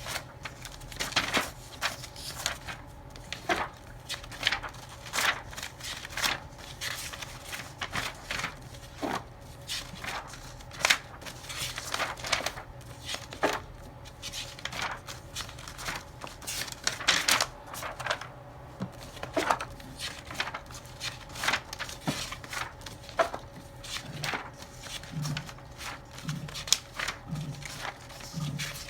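Irregular clicks, taps and rustles of small objects being handled, over a faint steady hum; near the end a run of soft low thuds, a little more than one a second.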